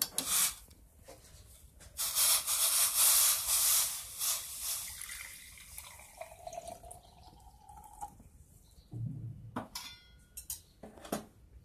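Warm water poured from a steel pan into a glass jar: a few metal clinks as the tongs grip the pan, a loud splashing pour, then a tone rising in pitch as the jar fills. A few knocks near the end.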